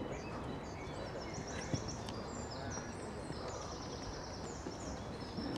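Small birds singing in a run of chirps and fast trills over steady low background noise, with a single short knock just under two seconds in.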